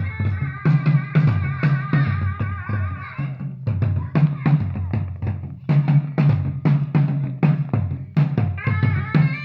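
Traditional dance music: drums beating a steady rhythm, with a wavering melody over them that drops out about three and a half seconds in and comes back near the end.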